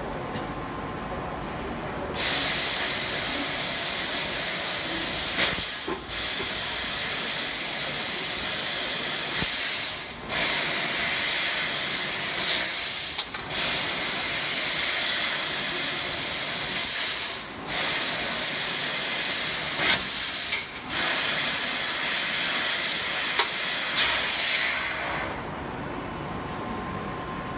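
Fiber laser tube cutter's assist-gas jet hissing loudly while it cuts. The hiss starts about two seconds in, cuts out briefly five times between cuts, and stops a couple of seconds before the end.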